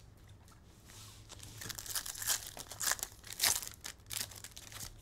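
Foil trading-card pack wrapper being torn open and crinkled by hand: a run of sharp crackles starting about a second in, loudest a little past the middle.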